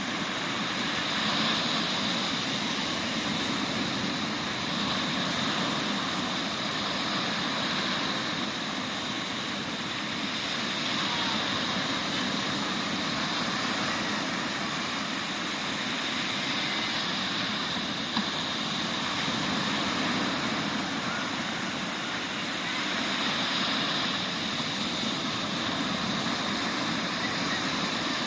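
Sea waves breaking and washing up a beach: a continuous rushing surge that swells and eases every several seconds.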